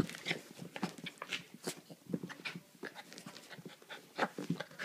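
Havanese puppy panting in quick, uneven puffs while a hand rubs her belly.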